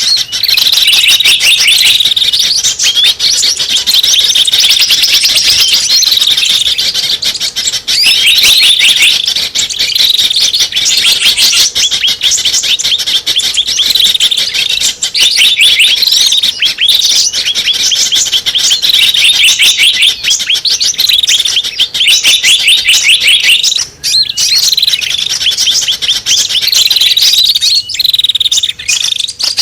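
Small birds chirping and twittering in a loud, dense, almost unbroken stream of high, rapid notes. This is a bird-lure (pikat) call recording used to draw small birds in.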